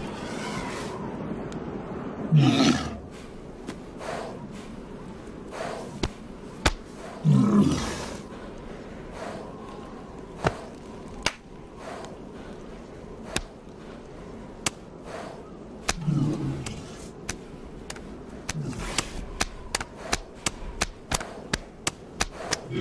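A walrus bellowing several times in loud, low calls, between sharp slaps of hands against flippers that come faster and faster near the end. Wind blows steadily underneath.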